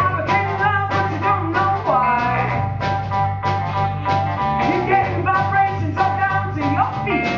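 Live soul-funk band playing an upbeat number: drums keep a steady beat of about two and a half hits a second under a bass line, electric guitar and saxophone.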